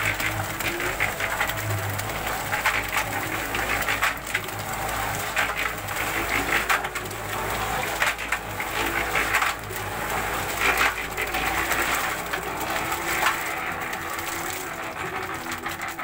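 GEPCO mini concrete mixer turning with a steady motor hum while wet concrete and gravel tumble and clatter out of the tipped drum as it is emptied. The clatter thins out near the end as the drum empties.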